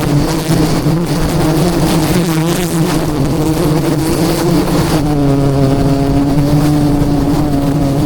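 Swarm of wild honey bees buzzing in a dense, steady drone. About five seconds in, a closer, higher buzz joins it.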